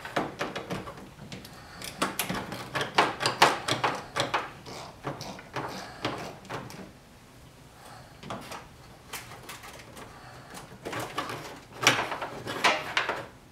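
Irregular metallic clicks and knocks of a hand tool loosening the negative battery cable's terminal clamp and the cable being worked off its post, in two flurries with a quieter stretch between.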